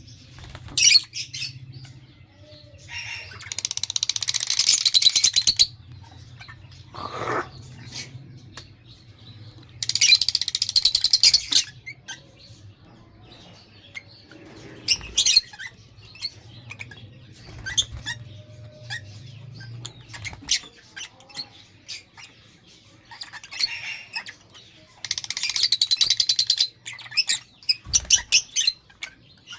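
Lovebirds chattering and chirping: sharp single chirps scattered throughout, with three longer bursts of rapid, shrill chatter about four, ten and twenty-five seconds in.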